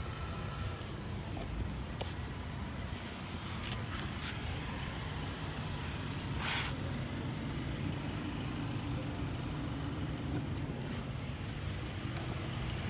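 Steady low rumble of motor-vehicle noise, with a short rustling swish about six and a half seconds in.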